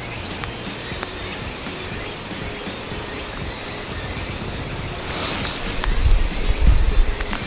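Steady outdoor ambience with a high insect drone, and wind buffeting the microphone in low rumbles about six to seven seconds in.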